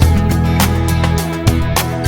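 Instrumental background music with a steady beat and sustained low bass notes.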